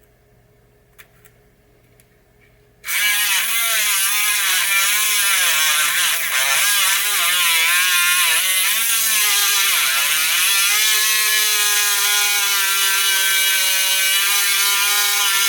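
A Dremel rotary tool switches on about three seconds in and runs with a high whine whose pitch wavers and dips as it bears on a pinball leaf-switch contact. Its spinning tip turns the loose contact, showing it to be a 'spinner', the cause of an intermittent switch. A couple of faint clicks come before it starts.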